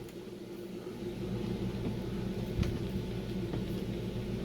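A steady low mechanical hum, with a couple of faint light clicks in the middle.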